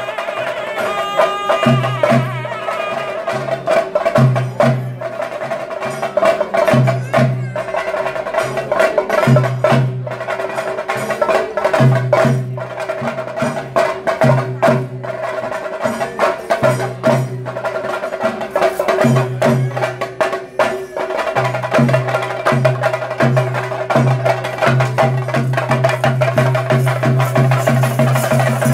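Chenda drums of a Theyyam ensemble beating a fast, dense rhythm, with a low tone pulsing in a repeating cycle of about two and a half seconds under the drumming.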